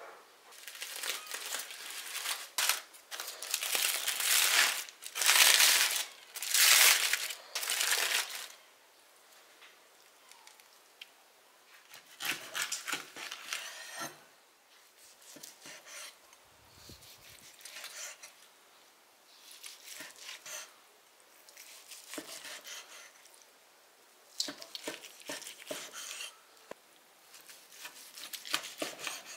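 Crisp, crunchy crackling in rapid bursts, loudest over the first eight seconds, then a large knife cutting through the crusty seared steak on a wooden board in short strokes with pauses between them.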